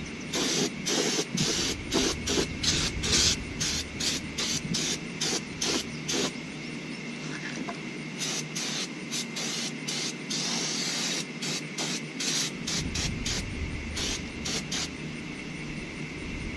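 Aerosol brake cleaner sprayed onto a new brake rotor in many short hissing bursts, with one longer spray partway through. It is degreasing the rotor to remove the protective oil left on it.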